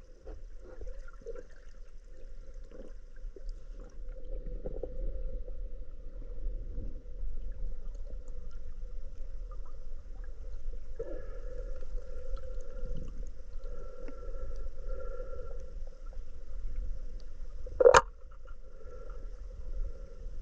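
Muffled, steady rumble of river water heard underwater. A single sharp click near the end is the loudest sound.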